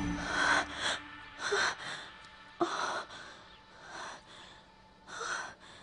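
A person breathing heavily in short gasping breaths, six or seven of them spaced irregularly.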